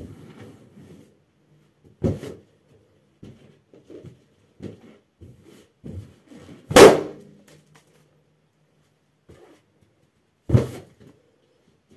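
Latex party balloons being stomped by a socked foot and bursting: three sharp bangs about two, seven and ten and a half seconds in, the middle one loudest, with softer squeaks and knocks of rubber being pressed and bumped between them.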